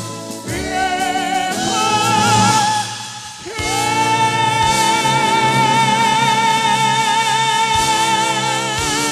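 Live band music with a singer's voice. About three and a half seconds in, the singer holds one long high note with a wide vibrato over the accompaniment.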